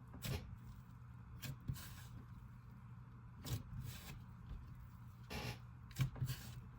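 Slime being squished and pressed by hand, giving scattered short clicks and pops, about one every second, over a low steady hum.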